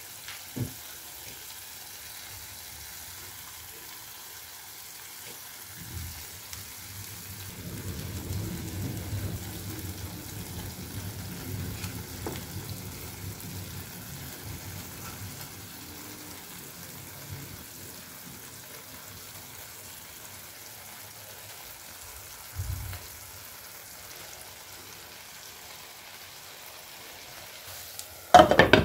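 Grated potatoes with egg and minced beef frying gently in a nonstick pan, a steady low sizzle. A silicone spatula works the food for a while in the middle. Just before the end, a glass lid clatters down onto the pan.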